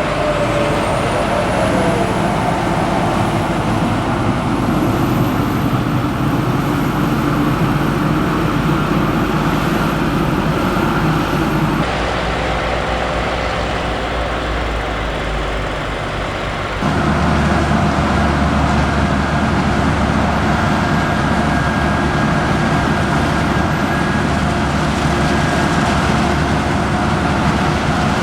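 Heavy farm machinery's diesel engines running steadily under work during the maize harvest. The sound changes abruptly about twelve seconds in and again about seventeen seconds in, and a faint high whine is heard over the first part.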